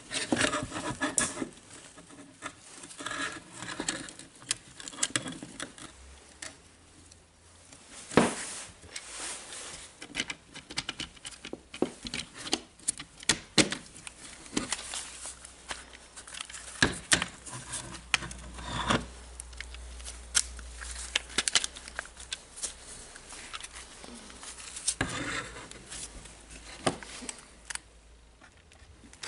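Handling noise from reassembling a DeWalt brushless cordless drill: irregular plastic clicks and knocks as the gearbox and chuck assembly are fitted into the housing, with rustling of gloved hands.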